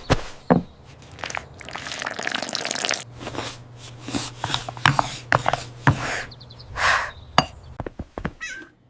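Kitchen clean-up: a stretch of rubbing noise, then scattered knocks and clatters over a low steady hum, with a short cat meow near the end.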